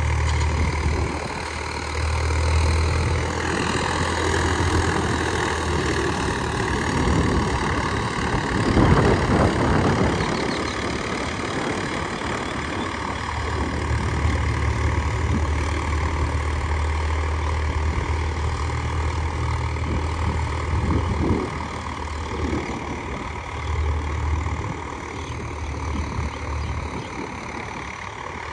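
Swaraj 744 FE tractor's diesel engine running with a steady low drone, growing louder and rougher for a moment about nine seconds in.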